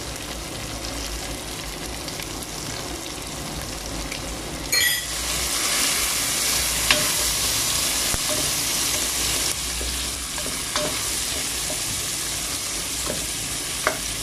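Adobo meat sautéing with onion, garlic and tomato in a stainless steel pot: a steady sizzle that grows louder about five seconds in. A wooden spatula stirs through it, with a few light knocks against the pot.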